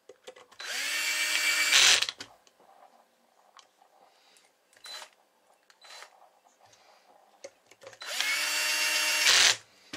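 Cordless drill-driver running screws into the side of a finned aluminium CB amplifier case, twice. Each run lasts about a second and a half, the motor's pitch rising as it spins up and getting louder just before it stops.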